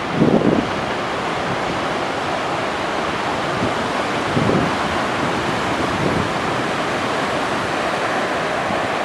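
Atlantic Ocean surf washing steadily onto the shore, with wind buffeting the microphone briefly near the start and again about halfway through.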